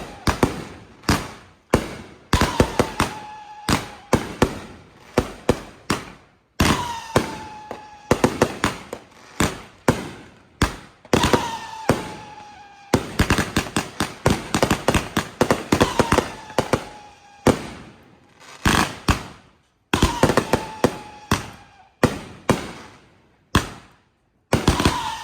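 Consumer fireworks going off in rapid clusters of sharp bangs and crackles. About every four to five seconds a short whistle falls slightly in pitch before the next burst of reports.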